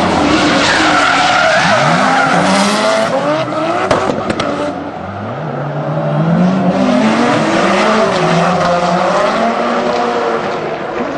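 Drift cars' engines revving up and down hard as they slide, with tyre squeal. There is a sharp crack about four seconds in, then the engine note climbs again.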